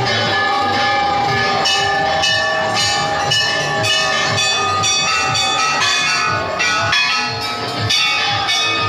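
Temple bells being rung over and over, many metal strikes overlapping into a continuous clanging ring at several pitches.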